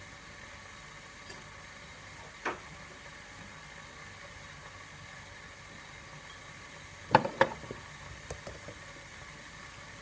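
A ceramic mug set down on a worktop: two sharp clunks about seven seconds in, then a few lighter clicks. There is one single knock earlier, over a steady faint hiss.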